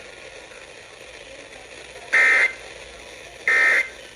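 SAME (Specific Area Message Encoding) end-of-message data bursts on a NOAA Weather Radio broadcast: two short, shrill warbling beeps about a second and a half apart, over steady radio hiss. They mark the end of the tornado watch message.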